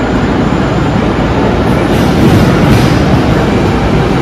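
Melbourne Metro electric suburban train moving on the station tracks, its wheels and running gear making a loud steady rumble on the rails that grows louder about two seconds in.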